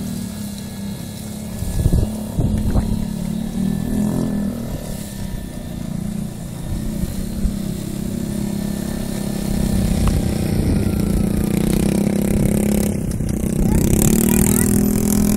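Small engine of a child's quad bike running steadily as it rides over sand, its pitch rising near the end as it comes up close. Gusts of wind rumble on the microphone.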